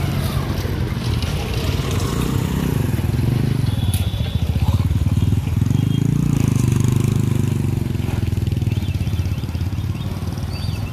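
Motorcycle and scooter engines running close by, a continuous low rumble that swells between about four and eight seconds in.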